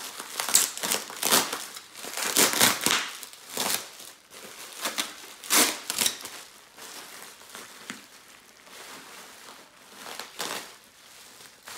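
Plastic bubble wrap crinkling as it is pulled and unwound by hand, in irregular rustles that are louder in the first half and fainter toward the end.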